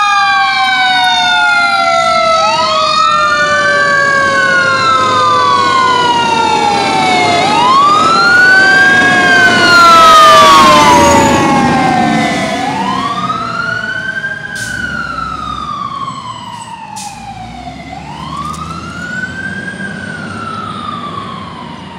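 Fire engine siren wailing in slow rising and falling cycles, about one every two and a half seconds, layered with a second siren tone that falls slowly in pitch. Loudest as the truck passes about ten seconds in, then fading as it drives away.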